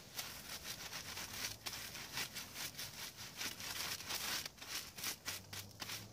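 Tin foil crinkling and rustling as it is handled and oiled, a dense run of irregular small crackles.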